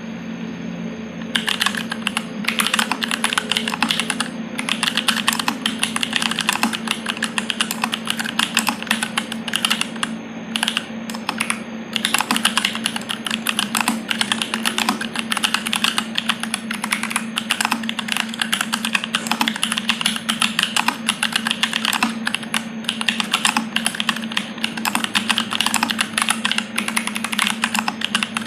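Typing on a dyz40 40% mechanical keyboard with stock Jwick T1 tactile switches, an FR4 plate, ABS Cherry-profile keycaps and no case dampener: a fast, steady run of keystroke clacks starting about a second in, with short pauses around the middle. A steady low hum sits underneath.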